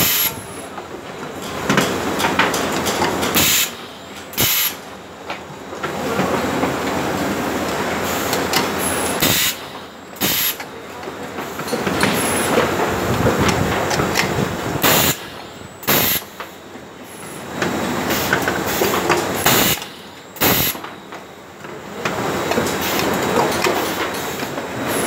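Pneumatic press of an LED bulb assembly machine cycling about every five to six seconds: each stroke gives two short sharp blasts of exhausting air about a second apart. A steady machine running noise continues underneath.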